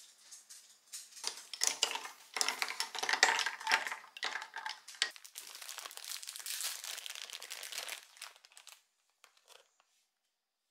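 Thin clear plastic bakery bag crinkling and rustling as it is handled and a pastry is pulled out of it. The crackle lasts about seven seconds and is followed by a few faint ticks.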